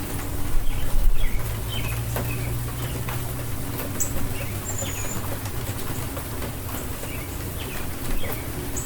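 Steady rain falling, with drops ticking, and birds chirping throughout; a thin high whistle sounds about four seconds in, over a low steady hum.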